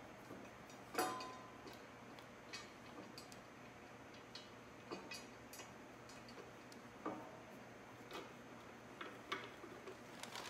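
Faint, scattered metallic clicks and taps of motorcycle crash-bar hardware (bolt, spacer and horn bracket) being fitted by hand against the frame, the sharpest about a second in.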